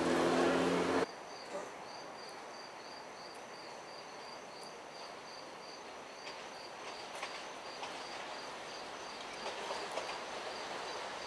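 A low hum cuts off about a second in. After that, insects chirp in a high, even pulse of about three a second, while a Long Island Rail Road M7 electric train comes on slowly from the distance and grows a little louder toward the end, with a few faint clicks from the rails.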